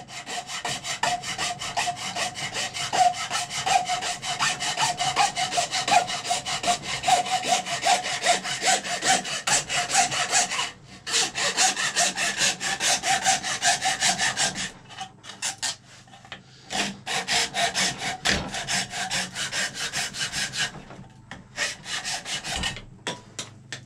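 Hand hacksaw cutting through the base of a raw horn: rapid back-and-forth rasping strokes, with a thin ringing note running over them for the first ten seconds or so. The sawing breaks off briefly about eleven seconds in and again around fifteen seconds, then resumes and thins out into slower, scattered strokes near the end.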